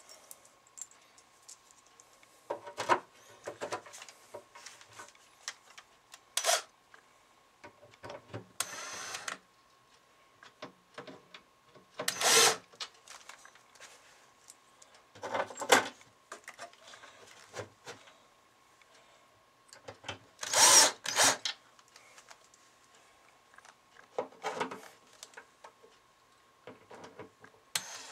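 Cordless drill driving screws into the wooden back panel of a Leslie speaker cabinet in short runs, between knocks and rattles of handling.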